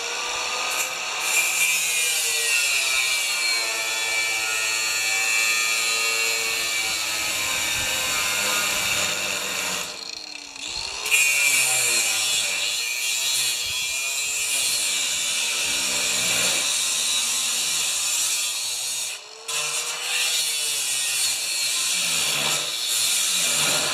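Angle grinder cutting through stainless steel sheet metal: a loud, continuous grinding screech. The motor whine sags and recovers as the cut loads it, and it eases off briefly about ten seconds in and again near nineteen seconds.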